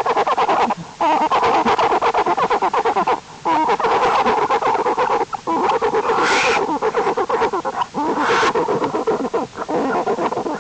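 Newborn black bear cubs humming while they nurse: a rapid, continuous pulsing buzz broken by short pauses, with two louder, higher-pitched bursts about six and eight seconds in.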